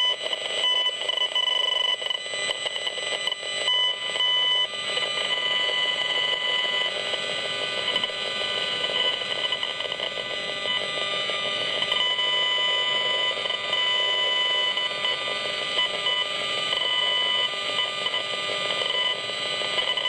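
Gigahertz Solutions HFE 35C RF analyser's built-in speaker sounding out the radio-frequency signals it is picking up: a continuous electronic buzz with shrill tones that keep cutting in and out.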